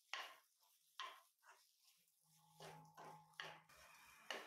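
Metal spatula stirring and scraping grated raw banana stir-fry in a nonstick kadai: a faint run of short scrapes, roughly one every half second to a second.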